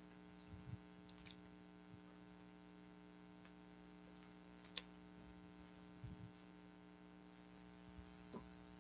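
Near silence: a faint steady electrical hum with a few soft clicks and taps, the sharpest about five seconds in.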